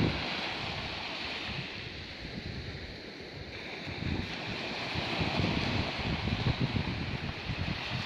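Wind buffeting the microphone in uneven gusts over the steady wash of sea surf.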